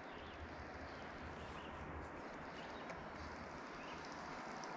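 Faint, steady outdoor background noise with a few light ticks.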